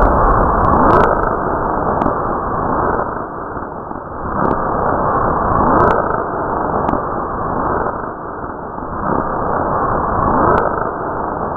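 A loud, steady rushing noise with a falling whoosh every second or two and a few sharp clicks.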